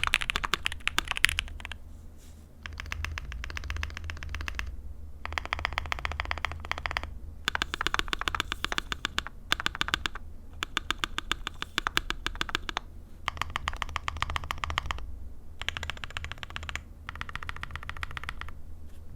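Mechanical keyboard typing test on Creampaca linear frankenswitches, lubed with Krytox 205g0, in an aluminium-plate Vega board with PBT keycaps. Fast keystrokes come in runs a second or two long, separated by brief pauses.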